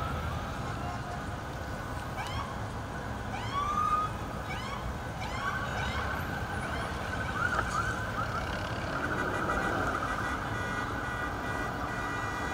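Police car sirens giving several short rising whoops, the loudest about four seconds in, followed by a steadier siren tone held through the rest, over a low rumble of car engines.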